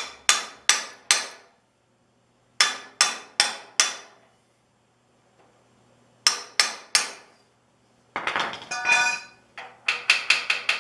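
Hammer tapping on a piece of pipe used as a driver to seat a tine shaft oil seal: quick runs of three or four ringing metal strikes with short pauses between runs. A longer metallic clatter comes a little past two thirds of the way through, followed by a final run of taps.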